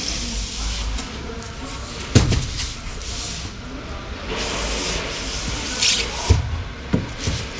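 Packs of polystyrene insulation boards being shifted by hand on a truck's trailer bed: rubbing and scraping of the packs against each other, with a thump about two seconds in and two duller knocks near the end.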